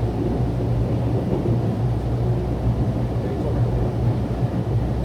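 Steady low rumble of a Mugunghwa-ho passenger train running along the track, heard from inside the carriage.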